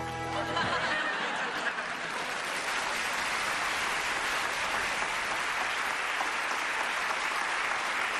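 Studio audience applauding, a steady spread of clapping that takes over as a short music cue ends about a second in.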